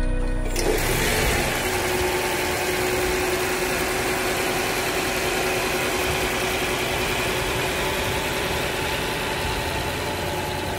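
Toyota Alphard hybrid's petrol engine idling steadily under the open bonnet, a constant hum over an even mechanical noise.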